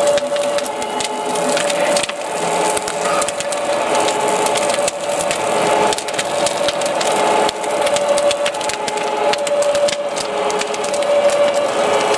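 Large fire crackling and popping with dense, irregular snaps, over a steady mid-pitched tone that shifts pitch every few seconds.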